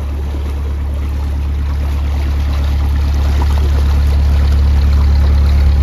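Narrowboat engine running steadily at low revs, a deep hum that grows gradually louder, with the propeller wash churning the water.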